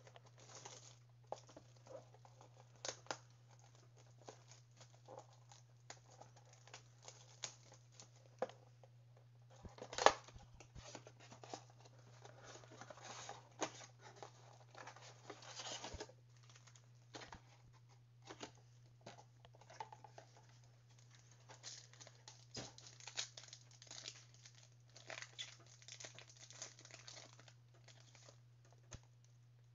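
Trading card foil packs being torn open and their wrappers crinkled, with irregular taps and clicks of cards and cardboard handled on a table and one sharper knock about ten seconds in. A low steady hum runs underneath.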